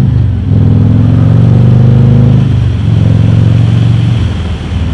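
Harley-Davidson Road King Special's V-twin engine accelerating hard. The revs climb, dip at a gear change about two and a half seconds in, climb again, then ease off near the end as the bike reaches cruising speed.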